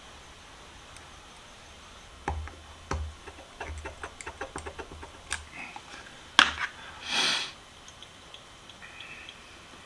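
Light clicks and knocks of metal tools on a rust-seized adjustable wrench as it is worked at again, quickening to several small clicks a second and ending in one sharper knock, followed by a brief breathy hiss.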